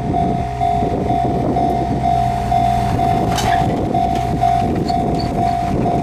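Railroad level-crossing warning bell ringing, one steady tone repeating about twice a second, over a low steady hum.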